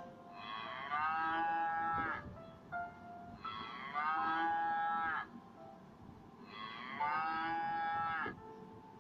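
Cow mooing three times, each moo a long drawn-out call of one to two seconds, evenly spaced.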